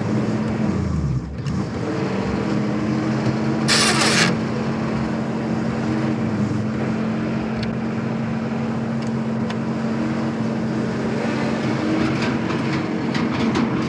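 Military truck engine running steadily; about a second in its pitch dips and picks up again. Around four seconds in there is a short sharp hiss, and light clicks and rattles come near the end.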